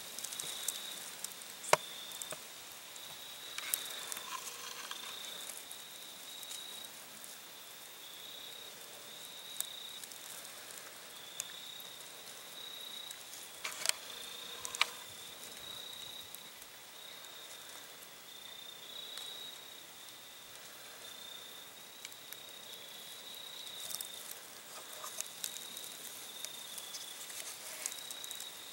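Crickets trilling steadily in the grass, a continuous high chirring, with scattered soft clicks and rustles.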